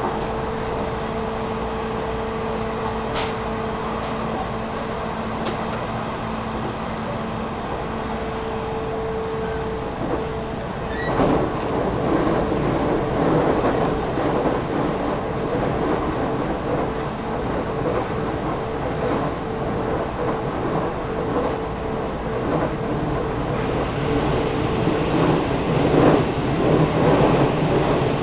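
JR 313 series electric train running, heard inside the motor car KuMoHa 313-4: a steady running rumble and hum that grows louder and rougher about eleven seconds in, with occasional wheel clicks over rail joints.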